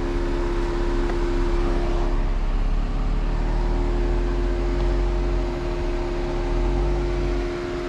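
Jeep engine running at low revs under load as it crawls over rocks and roots, the low rumble rising and easing a few times, with a steady hum held throughout.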